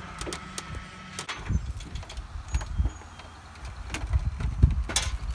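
Scattered knocks and clicks of a printer's plastic parts being handled and pulled apart, over a low rumble.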